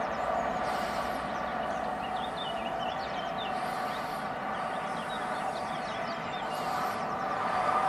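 Steady drone of distant road traffic, with small birds chirping faintly in the middle.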